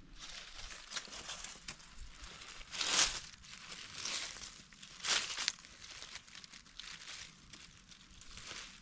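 Dry fallen leaves crackling and rustling as a hand clears them aside, in irregular bursts, loudest about three and five seconds in.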